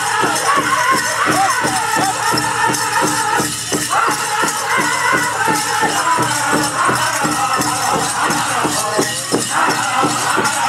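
Powwow drum group playing a chicken dance song: a big drum struck in a steady, fast beat, with high, wavering group singing over it. Dancers' bells add a rattling jingle.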